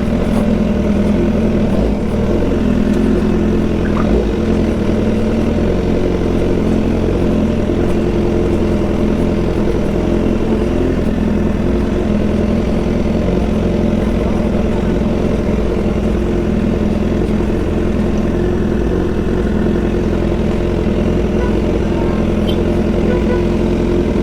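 BMW S1000 XR's inline-four engine, breathing through a full Akrapovič exhaust, running at a steady, unchanging pitch.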